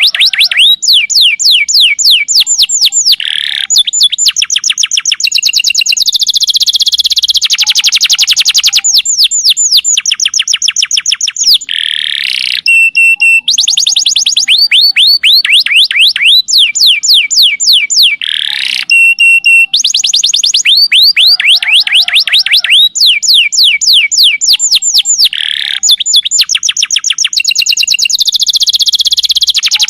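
Domestic canary singing a long, loud, unbroken song of rapid trills: runs of fast down-sweeping notes, many a second, alternating with buzzy rolls and a few short held whistles.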